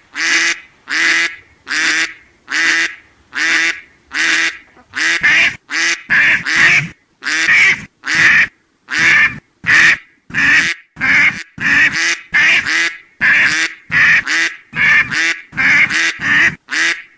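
A duck quacking over and over, one loud call at a time, about one a second at first, then coming faster and less evenly from about five seconds in.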